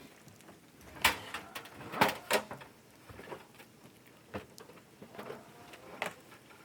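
A few irregular knocks and clicks. The loudest come about one and two seconds in, with smaller ones after.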